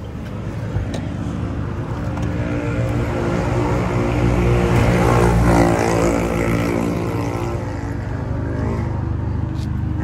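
Honda City's four-cylinder engine being revved and held through a free-flow muffler. It is heard from inside the cabin at first, then close to the tailpipe, and the exhaust note grows louder to a peak about halfway through before easing slightly.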